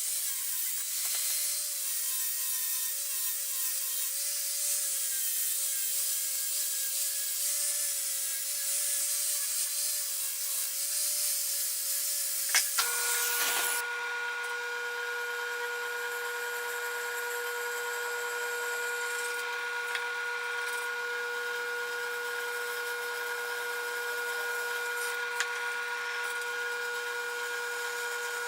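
Power tool cutting steel plate, its whine wavering in pitch under load with a hiss from the cut. About twelve seconds in there are a few sharp knocks, and then a steadier, slightly lower whine with overtones carries on to the end.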